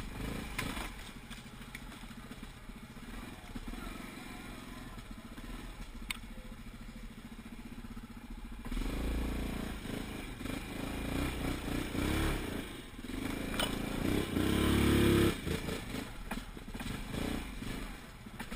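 Yamaha Grizzly 700 ATV's single-cylinder engine running while riding a rough trail, revving up about nine seconds in and again, loudest, around fourteen to fifteen seconds in, with knocks and clatter from the bumps.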